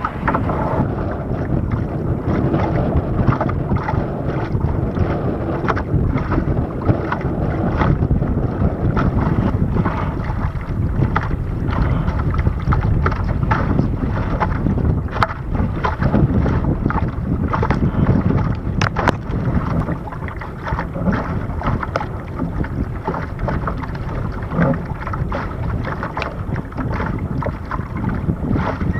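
Wind buffeting the microphone of an action camera on the foredeck of an RS Aero sailing dinghy, as the dinghy sails through choppy water. Waves slap against the hull in frequent sharp knocks, with a few harder strikes midway.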